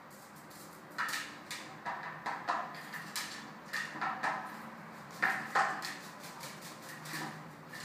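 Hooded crow bathing in a plastic bowl of water: a run of irregular splashes as it dips and shakes in the bowl, starting about a second in.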